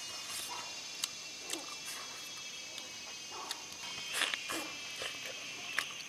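Close-up eating sounds of someone biting into and chewing grilled fish: wet lip smacks and mouth clicks, a few of them sharp. Behind them runs a steady, high-pitched insect trill.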